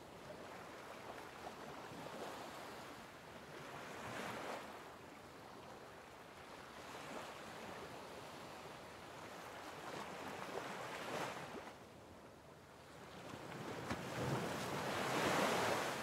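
Sea waves washing, swelling and fading every few seconds, the loudest wave near the end.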